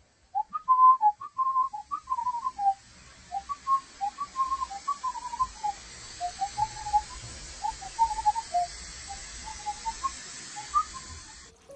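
A person whistling a wandering tune of short, sliding notes, several a second, over a steady hiss.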